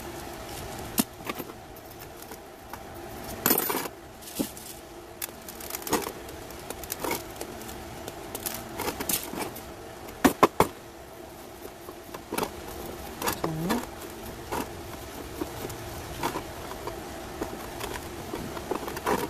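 Coarse granite potting grit (masato) rattling and clicking as it is poured and worked around a small succulent being potted up. Scattered small clicks and short rustles, with two sharp clicks about ten seconds in.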